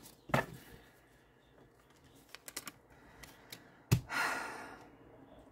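Tarot cards handled on a wooden table: a few light clicks and taps of cards, then a sharper knock about four seconds in followed by a brief rustle.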